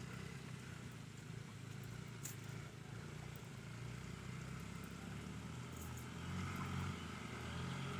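Faint, steady low hum of an engine running, with a couple of light ticks.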